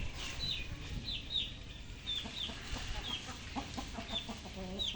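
Chickens clucking, with many short, falling high-pitched chirps throughout and a cluster of lower clucks in the second half.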